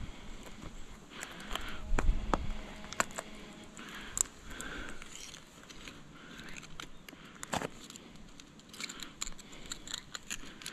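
Hard clicks, knocks and scrapes of oyster shells against rock as wild oysters are pried off and gathered by hand in shallow river water, with light splashing. The sharpest knocks come about two seconds in and again about two-thirds through, and a quicker patter of small clicks follows near the end.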